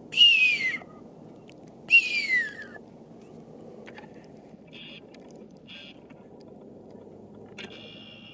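Bird calling twice, about two seconds apart: two loud, harsh calls that each slide down in pitch and last under a second. Near the end comes a fainter, steady high tone.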